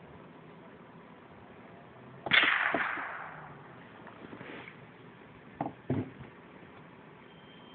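A .45-calibre Hawken-style black powder rifle firing once: a sharp crack that dies away over about a second. Two short knocks follow a few seconds later.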